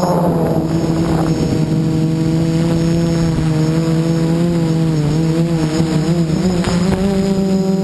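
Electric motors and propellers of an Xaircraft X450 Pro quadcopter (Cobra 2213 brushless motors) humming in flight with a steady pitch. The pitch wavers up and down for a couple of seconds near the end as the throttle changes, over a rough rumble of wind and air buffeting.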